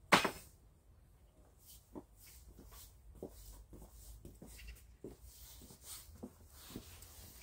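A single sharp knock just after the start, then a man's footsteps scuffing on a packed dirt floor as he walks.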